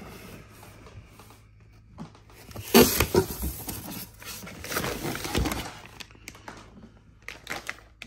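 Cardboard TV box and styrofoam packing being handled, as hands reach in between the flaps and foam: scraping and rubbing, loudest about three seconds in and again around five seconds. Lighter rustles and clicks follow near the end.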